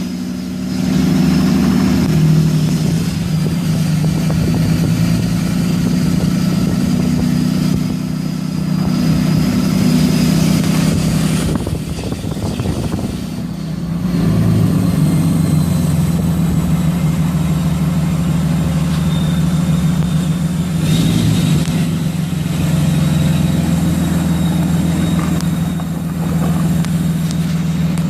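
Cummins 6.7 L inline-six turbodiesel running steadily with a thin high whine over the engine note, the sound of a failing turbocharger.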